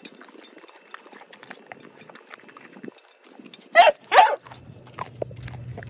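Pit bull-type dog chewing a piece of raw, thawed whole chicken: many small wet clicks and crunches, with two louder bursts close together about four seconds in.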